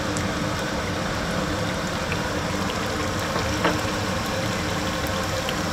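Steady machine-like hum with a low tone running through it, and a single light click about three and a half seconds in.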